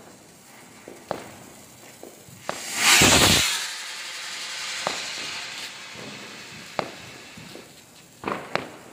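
Diwali firework going off: a loud burst about three seconds in that trails away into a hiss over the next few seconds. Small scattered pops run throughout, with two sharper pops near the end.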